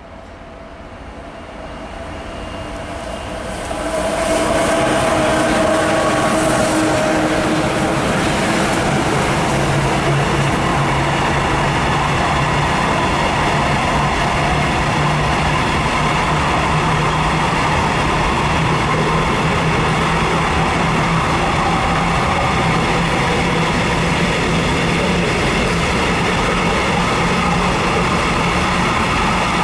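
Electric freight train hauled by a DB Class 185 locomotive passing close by: it grows louder over the first four seconds as it arrives, then the covered hopper wagons keep rolling past in a long, steady rumble and clatter of wheels on rail.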